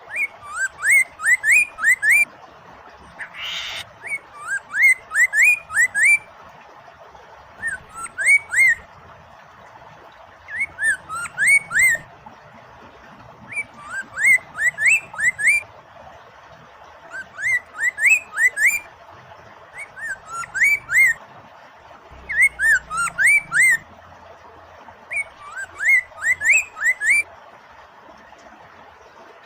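Chinese hwamei (poksay mandarin) singing: repeated phrases of quick, rising whistled notes every few seconds, over a steady rush of running water. A brief hiss about three seconds in.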